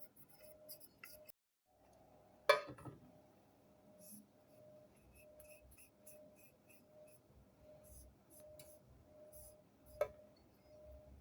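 Zippo lighter casing being handled while it is cleaned: one sharp metallic clink with a short ring about two and a half seconds in, a smaller clink near the end, and faint ticking and rubbing between.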